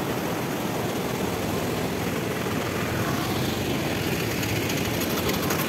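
Water released from a dam rushing through a small canal in fast white water: a steady, even rushing noise.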